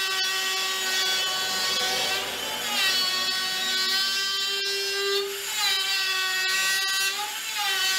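Dremel rotary multi-tool whining at high speed as it cuts into the hard wood of a log jammed on a bandsaw blade. Its pitch sags and recovers a few times as the tool bites in.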